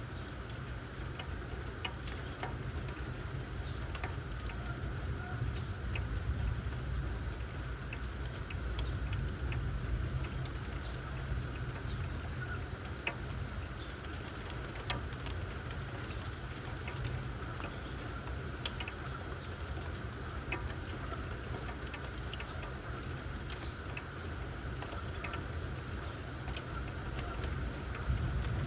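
Steady rain of a thundershower, with scattered drops ticking sharply on a hard surface over a constant low rumble.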